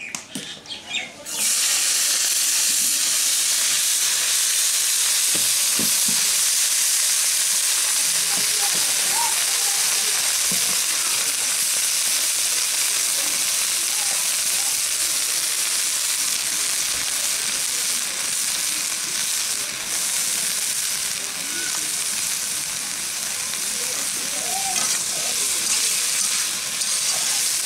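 Chopped pointed gourd leaves (polta pata) and eggplant frying in hot oil in a kadai, stirred with a metal spatula. The loud steady sizzle starts suddenly about a second in as the vegetables go into the oil.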